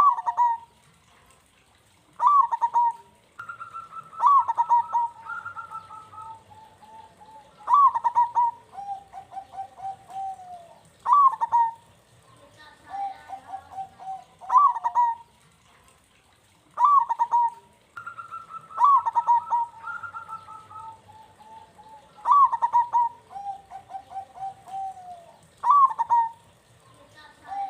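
Zebra dove (perkutut) cooing its song over and over: each phrase opens with a sharp rising note and runs into a string of quick, rolling coos, with short pauses between phrases.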